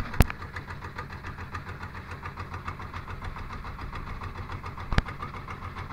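A small fishing boat's engine running steadily with a rapid, even chug. Two sharp knocks stand out, about a quarter second in and near the end.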